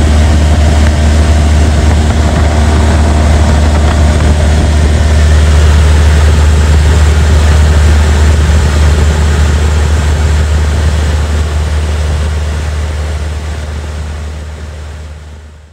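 Cessna 172's piston engine and propeller running steadily in flight, heard loud from inside the cabin as a deep, even drone. It fades out over the last few seconds.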